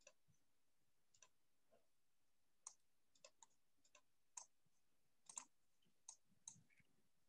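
Faint, irregular clicks from a computer mouse and keyboard, about a dozen spread over several seconds with short gaps between them.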